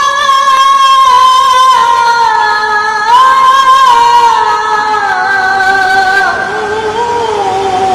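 Qur'an recitation (tilawah) sung by a male qari in a very high register: long held, ornamented notes that sink slowly in pitch, with a new phrase starting high again about three seconds in.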